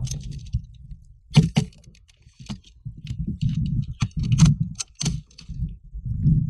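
Tokyo Marui MWS gas blowback airsoft rifle firing single shots. Each shot is a sharp clack of the gas-driven bolt cycling, several in all at uneven intervals, with two in quick succession about a second and a half in. Under them is a low rumble of wind on the gun-mounted microphone.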